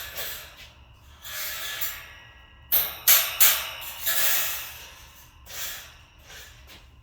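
Metal storage rack being lifted and handled: irregular rustling and scraping, with a few sharp knocks about three seconds in.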